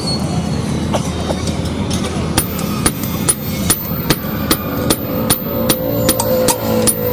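Hammer striking metal on an anvil: sharp ringing blows begin about two seconds in and come two or three a second, over a steady low rumble.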